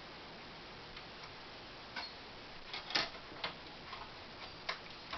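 Scattered small plastic clicks and taps at an irregular pace, the loudest about three seconds in: Lego Technic bricks and pins being unclipped and pulled off a mounting bracket.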